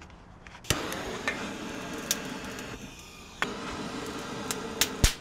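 Handheld gas torch lit with a click about a second in, then hissing steadily as its flame is held to charcoal to start the fire. The hiss stops briefly around three seconds and comes back with another click, and a few sharp clicks fall along the way, the loudest near the end.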